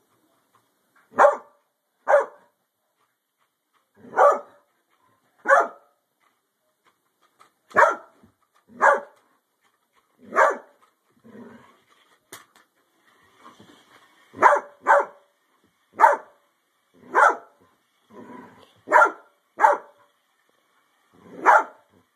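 A yellow Labrador retriever barking at a remote-controlled toy car: single loud barks every second or two, several in quick pairs.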